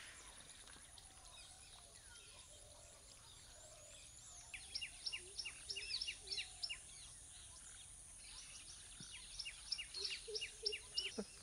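Birds calling in two bursts of rapid, sharp downward-sliding notes, about five a second, starting about four and a half seconds in and again near the end, over a faint steady hiss.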